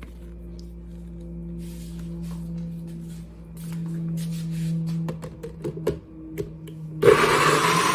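A steady low hum and a few clicks and knocks, then about seven seconds in a Nutribullet 600-watt blender's motor switches on abruptly and runs loudly, blending food.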